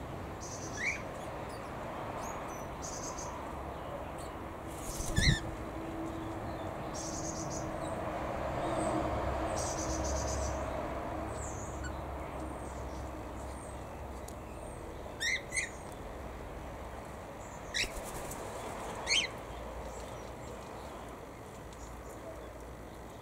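Aviary birds chirping: a handful of short, sharp calls scattered through, over a faint steady twittering in the background. About five seconds in, a call comes together with a dull thump.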